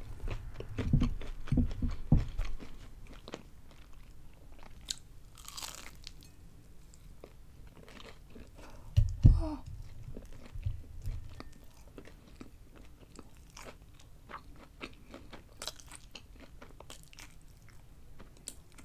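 Close-miked eating of breaded, fried mozzarella sticks: crunching bites into the crisp crust and wet chewing, with many small crackles. One louder thump comes about nine seconds in.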